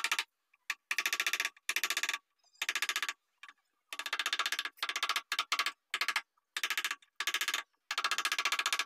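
Wooden mallet tapping a carving chisel into a wooden bed panel, in quick runs of light taps broken by short pauses.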